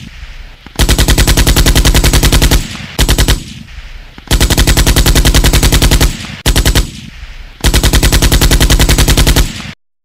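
Bursts of rapid automatic machine-gun fire: three long bursts of about two seconds and two short ones, each trailing off in an echo. The firing cuts off abruptly near the end.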